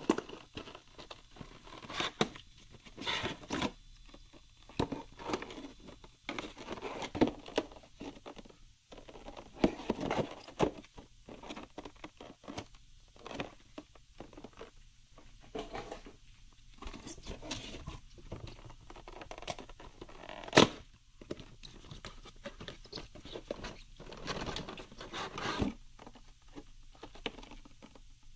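A small cardboard box and a clear plastic clamshell holding a CPU heatsink being handled and opened: irregular rustling, scraping and crinkling with scattered clicks. One sharp click about two-thirds of the way through is the loudest.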